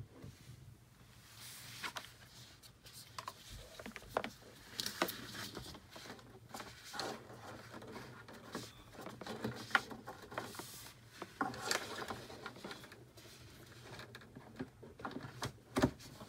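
Handling of a Google Home's white cardboard box and its inserts: irregular rustling, scraping and light knocks of cardboard, with a sharper knock about ten seconds in and another near the end.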